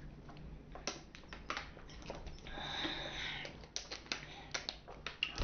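A scattered string of light clicks and taps, with a short soft hiss about halfway through.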